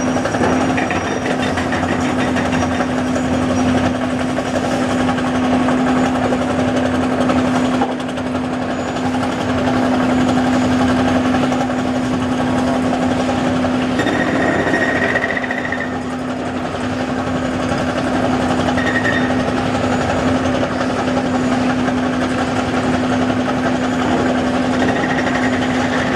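Heavy construction machinery: a diesel engine running steadily under a fast, continuous rattling hammering.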